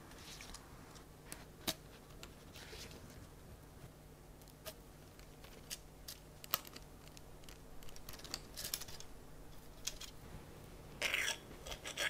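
Faint, scattered small clicks and taps of mechanical keyboard parts being handled and fitted, with a brief scraping rustle near the end. A faint steady low hum runs underneath.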